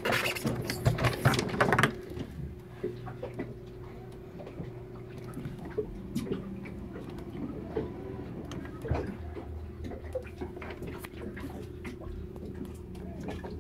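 Rustling and knocking in the first two seconds, then many small clicks and rubs, over a steady low hum.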